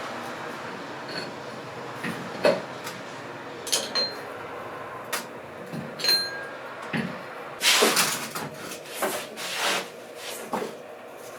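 Handling noises: scattered knocks and clinks of hard objects being moved, with a louder stretch of scraping knocks about eight seconds in.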